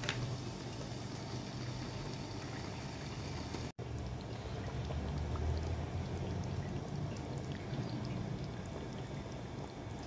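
Water being poured into a pot of nihari gravy: a steady liquid pouring and splashing noise, broken by a brief dropout about four seconds in.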